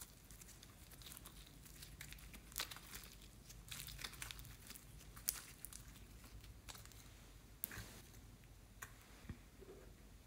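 Faint, sticky crackling and popping of soft foamy slime as hands stretch, fold and squeeze it, with a few sharper snaps as it pulls apart.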